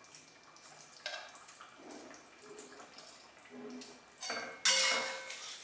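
Kitchen utensils knocking and scraping against a cooking pot a few times, then a louder clatter of metal cookware near the end.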